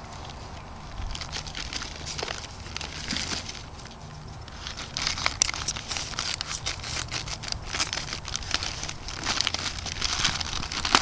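Brown kraft-paper package wrapping crinkling and tearing as it is cut and pulled open by hand. The rustles and crackles are irregular and get busier from about halfway through.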